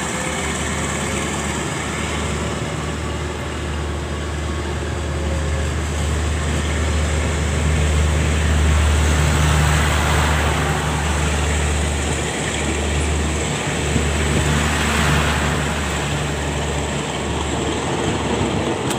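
Diesel locomotive engine running with a steady low drone, growing louder toward the middle, with a few brief dips in the drone later on.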